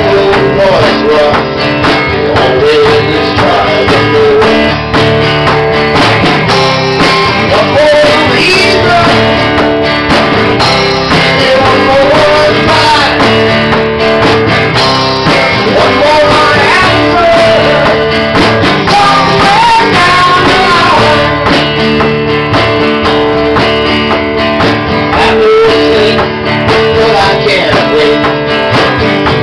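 A small band playing live: strummed acoustic guitar, electric bass and drum kit, with a man singing.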